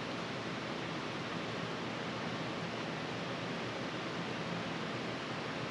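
Steady, even hiss with no distinct events: background noise with nothing else sounding.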